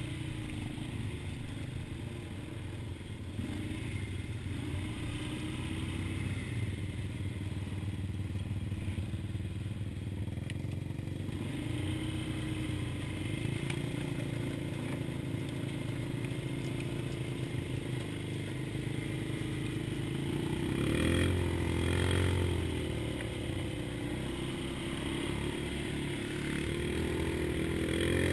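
ATV engine running over rough ground, its pitch rising and falling with the throttle, revving hardest about twenty seconds in and again near the end.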